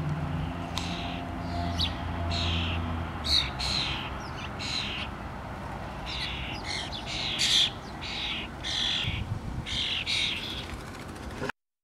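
Common starlings giving a run of short, raspy calls, about two a second, with a low hum underneath for the first few seconds. The sound cuts off suddenly near the end.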